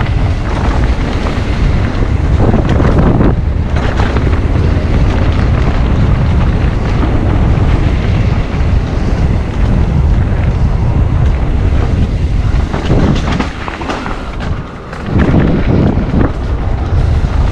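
Heavy wind buffeting on an action camera's microphone while a mountain bike is ridden at speed, a steady low rumble that eases briefly about fourteen seconds in.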